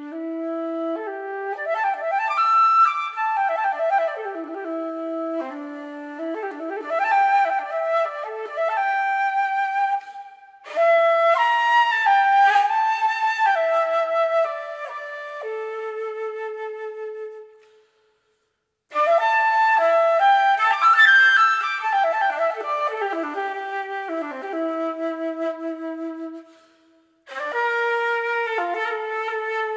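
Solo concert flute playing an improvised melody in the low and middle register, in phrases broken by short breath pauses about ten, eighteen and twenty-seven seconds in.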